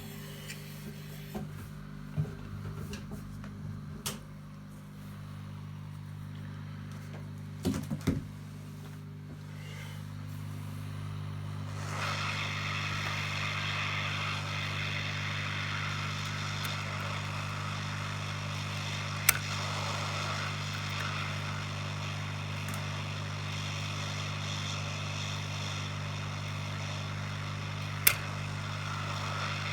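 Hot air rework station running with a steady low hum. About twelve seconds in, the hiss of its hot air stream starts up and carries on steadily, with a few sharp clicks along the way.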